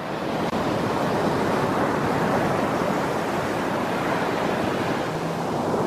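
Small waves washing in over a shallow, rocky shore: a steady rush of surf.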